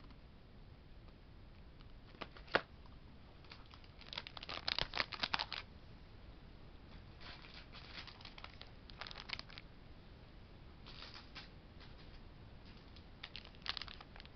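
Plastic product packaging crinkling and crackling as it is handled, in several short bursts with a sharp click about two and a half seconds in and the busiest crinkling a little after four seconds.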